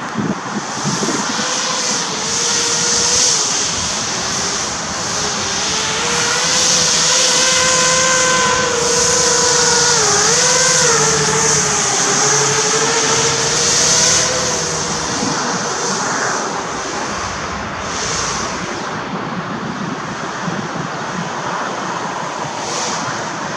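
Battery-powered RC hovercraft's electric fans whining as it drives, the pitch wavering and dipping briefly with the throttle, over a rushing hiss. Loudest in the middle as the craft passes close, fading as it moves away near the end.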